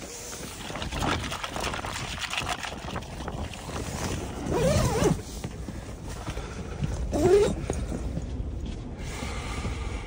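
Strong wind buffeting a small pop-up ice-fishing tent: the fabric walls flap and shake over a low wind rumble, with two louder moments about halfway through and about seven seconds in.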